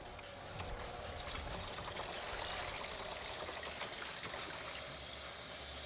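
Engine coolant pouring in a stream from the Mini Cooper Countryman R60's disconnected lower radiator hose outlet and splashing into coolant already pooled in a plastic drain pan, a little louder from about half a second in.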